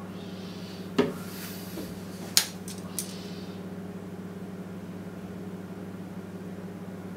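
Handling noises on a work table: a knock about a second in, then a sharp click and two lighter ticks within the next two seconds, with a faint rustle, over a steady low hum.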